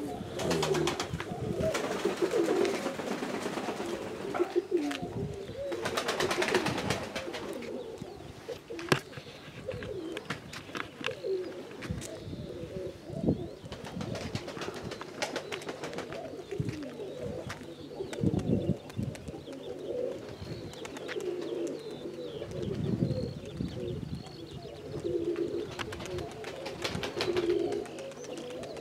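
Domestic pigeons cooing, low repeated coos throughout, with scattered clicks and knocks.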